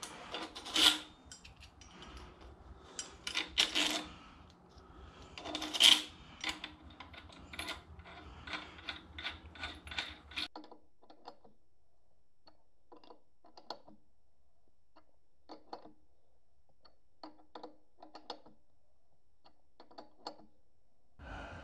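Steel wrenches and a power steering pulley installer tool clinking and clicking as the tool is fitted on the pump's pulley and cranked on by hand. The clicks are short and irregular: a busy run of clinks at first, then sparse single clicks.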